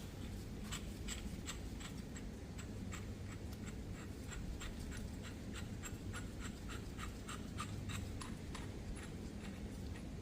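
Hand ratchet wrench clicking steadily, about four clicks a second, as a fastener is turned. The clicks stop about a second and a half before the end, leaving a low steady hum.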